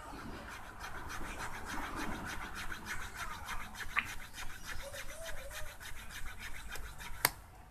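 Small blade scraping back and forth across a soft carbon motor brush, scoring it through to cut it to length, in quick even strokes of about five a second, with one sharp click near the end.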